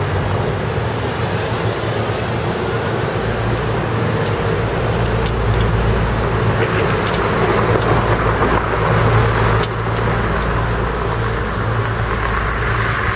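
Steady city street traffic noise: cars running past with a constant low rumble, and a few faint clicks about halfway through.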